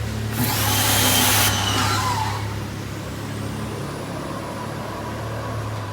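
Gas pressure washer engine running steadily, with a loud burst of high-pressure water spray hissing from the gun about half a second in and lasting about a second.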